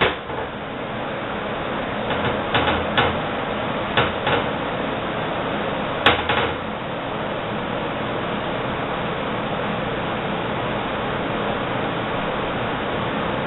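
A handful of short knocks, a few at a time about two, four and six seconds in, over a steady hiss.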